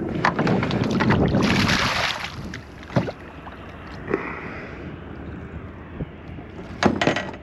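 A small bass splashing at the water's surface beside the boat as it is reeled in and swung aboard, with a few sharp knocks near the end.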